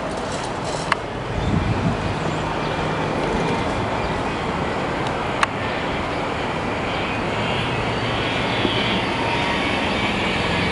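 Steady outdoor background noise of road traffic, with two sharp clicks, one about a second in and one about five seconds later.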